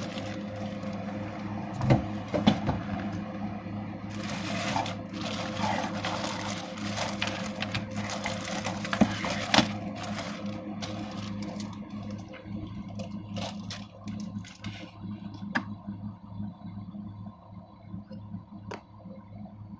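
Plastic bag and cardboard box being handled: rustling and crinkling with a few sharp knocks. The handling dies down a little past halfway, leaving scattered light clicks over a steady low hum.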